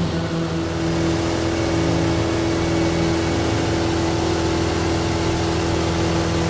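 Cessna 172's engine and propeller droning steadily, heard from inside the cabin in flight.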